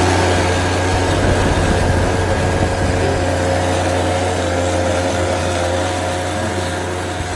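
OREC SP850A mower's small two-stroke engine running steadily at speed, a whine of even tones over a low hum, easing slightly near the end.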